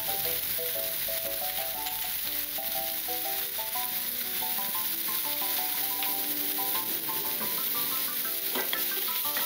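Chicken tenderloin strips and sliced onion sizzling steadily in a nonstick frying pan, under soft background music: a slow melody of short notes.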